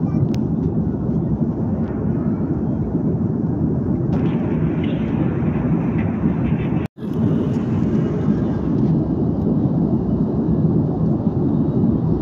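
Steady cabin noise of a jet airliner in cruise, from a window seat beside the turbofan engine: an even, deep rush of engine and airflow. A split-second dropout about seven seconds in.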